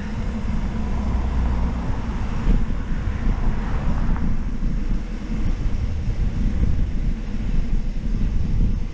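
Wind buffeting the microphone of a camera carried on a moving mountain bike: a steady low rumble.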